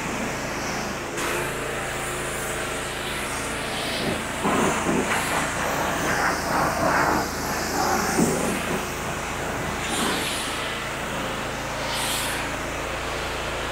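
Gas-engine pressure washer running steadily, with the hiss of its high-pressure spray striking the boat's hull in repeated spells.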